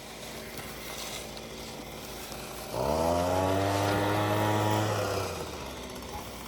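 An engine running, then revving up about three seconds in, holding steady for about two seconds, and dropping back down.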